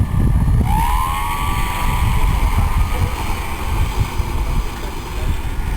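Small model-airplane motor revving up about half a second in: a rising whine that levels off and then fades over a few seconds. Wind buffets the microphone throughout.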